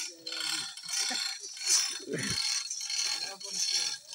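Manual chain hoist rattling in repeated bursts as its chain is hauled by hand, lifting a heavy timber column.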